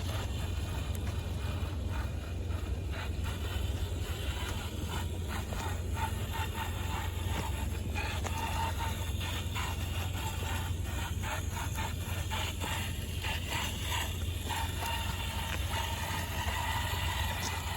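1/6 scale RC rock crawler working over rocky ground: repeated short scrapes and clicks of tyres and chassis on stone, with a faint motor whine now and then, over a steady low rumble.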